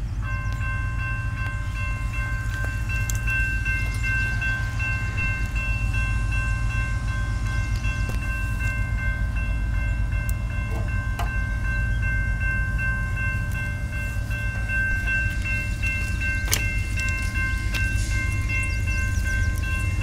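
Grade-crossing warning bell ringing in a rapid, steady pattern with the gates down, over the heavy low rumble of CSX diesel freight locomotives.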